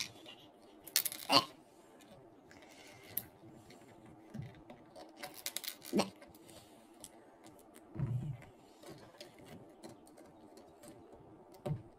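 Small plastic LEGO pieces clicking and tapping as they are handled and fitted together, a few sharper clicks among them, with a soft low thump about eight seconds in.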